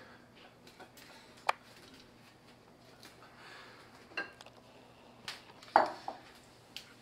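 Kitchen knife knocking on a wooden butcher-block cutting board while oranges are cut up, a few scattered sharp knocks, then a glass bowl set down on the board near the end with the loudest knock.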